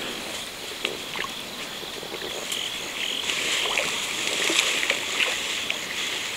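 Frogs croaking in scattered short calls, over a steady high-pitched background chorus.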